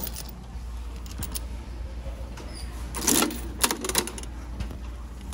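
Quarters going into a bouncy-ball vending machine's chrome coin mechanism and its metal handle being turned: a couple of faint clicks, then a louder run of sharp metallic clicks and rattles about three seconds in.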